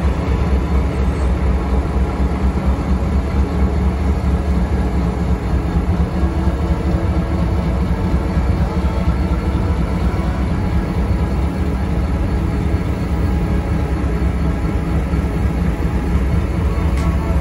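Diesel freight train passing, a steady loud low rumble.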